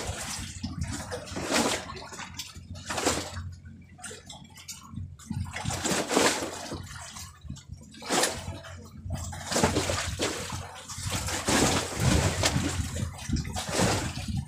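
Choppy sea water slapping and sloshing against the side of a small wooden boat, in irregular surges every second or two.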